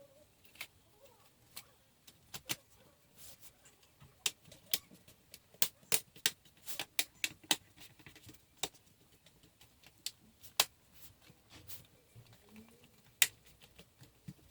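Irregular sharp clicks and taps of hands and tools working on a laptop's parts during disassembly, a few of them louder than the rest.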